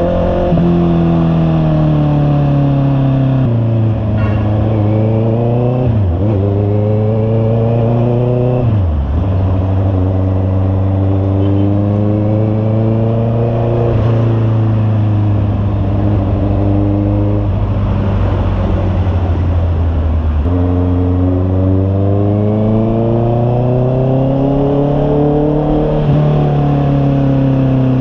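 Honda CB650R inline-four engine through an aftermarket muffler, riding through the gears: the engine note climbs, then drops sharply at upshifts about 6 and 9 seconds in. It cruises at a steady pitch, then climbs again in the last third.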